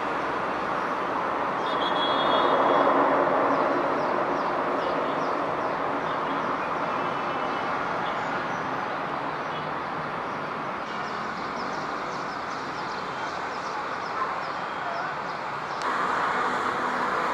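Distant jet airliner engines, a steady rushing hum that swells briefly a couple of seconds in, with birds chirping faintly above it. Near the end it changes abruptly to a louder, brighter rush.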